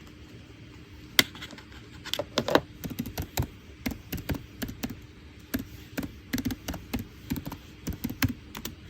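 Irregular taps and clicks of things handled on a desk: one sharp click about a second in, then a steady run of small clicks, about four a second, until near the end.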